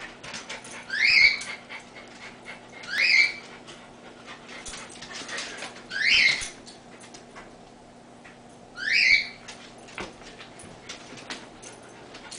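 A dog whimpering: four short, high whines, each rising in pitch and levelling off, repeated every two to three seconds.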